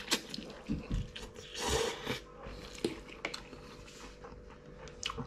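A person slurping instant ramen noodles off a fork in a few short hissing pulls during the first two seconds, then chewing, with small wet clicks.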